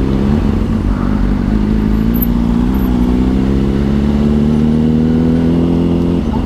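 Sportbike's 600 cc inline-four engine heard from the rider's helmet camera, running at steady cruising revs with the pitch creeping slowly upward. Near the end the revs fall away as the throttle closes.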